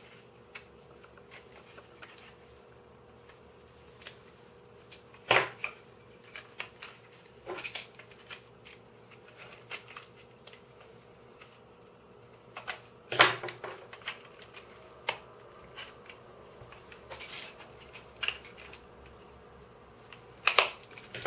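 3D-printed puzzle-cube pieces clicking and knocking as a corner piece is worked into place by hand, with small ticks throughout and a few sharp clicks, the loudest about five, thirteen and twenty seconds in.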